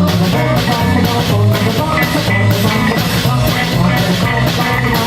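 Live rockabilly band playing an instrumental stretch with no vocals: drum kit keeping a steady beat under electric guitar.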